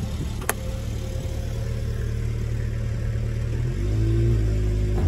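Truck engine running at low speed as the truck rolls its tyre over a polymer AR-15 magazine lying on dirt. There is a single sharp click about half a second in, and the engine note steps up a little past the middle.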